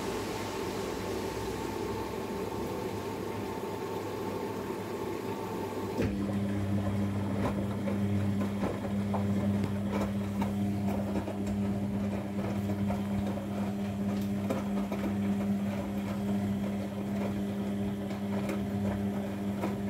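Front-loading washing machine during a wash cycle: a steady hiss with a faint whine at first, then about six seconds in the drum motor starts with a steady low hum and the drum turns the wet laundry, which swishes and patters against the drum.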